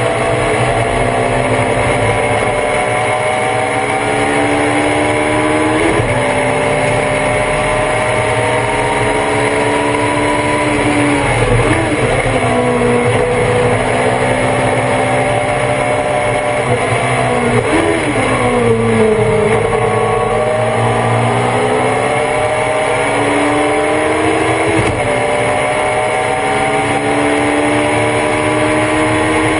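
Thunder Roadster race car's engine heard on board under hard acceleration, its pitch climbing slowly through each gear. It drops sharply at upshifts about 6 seconds and 25 seconds in. Twice, at about 12 and 18 seconds, the revs fall and climb again as the car slows for corners and accelerates out.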